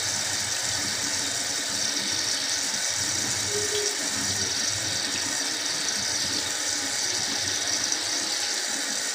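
Bathroom sink faucet running, a steady hiss of water.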